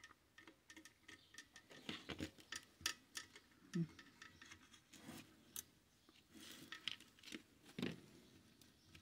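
Faint, scattered clicks and taps of a screwdriver working screws out of a fare box's metal housing, with the small metal parts being handled.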